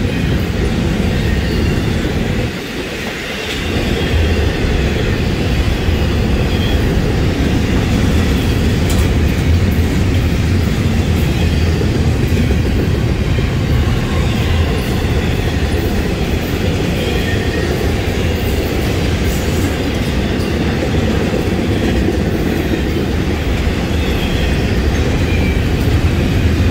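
Florida East Coast Railway double-stack intermodal freight train rolling by: steel wheels on the rails make a steady rumble and clickety-clack as loaded container cars pass. The sound is briefly quieter about three seconds in.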